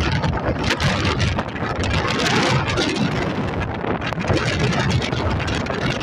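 Wind buffeting the microphone: a loud, uneven rumble and rush that swells and dips with the gusts.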